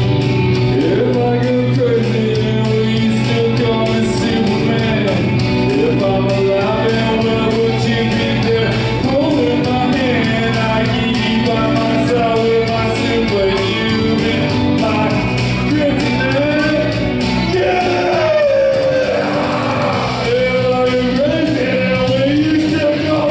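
A man singing a rock song into a handheld microphone through a PA over loud rock backing music.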